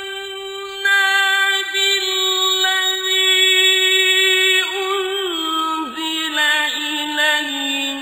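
A male reciter chanting the Quran in the melodic mujawwad style, with strong vibrato-free sustain: one long note held steady for about four and a half seconds, then a wavering, ornamented run that steps down in pitch.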